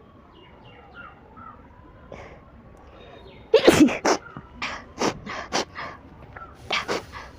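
A person sneezing, set off by grass tickled in the nose: a loud sneeze about halfway through, followed by a quick run of shorter sneezes and breathy bursts.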